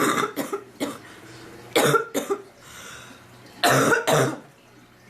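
A woman coughing hard from illness, in three bouts of a few harsh coughs each: one at the start, one about two seconds in and one near four seconds.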